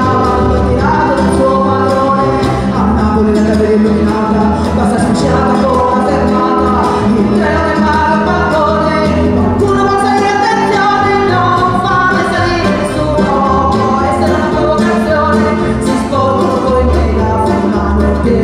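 Live acoustic folk music: a piano accordion, a classical guitar and a plucked double bass playing together, with a woman singing.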